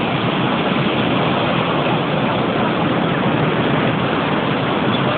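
Steady rushing noise of wind and breaking surf, even throughout with no distinct events.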